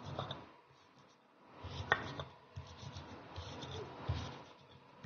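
Stone pestle pounding and grinding red chillies in a volcanic-stone mortar (ulekan and cobek): irregular dull thuds and crushing, with one sharper knock about two seconds in.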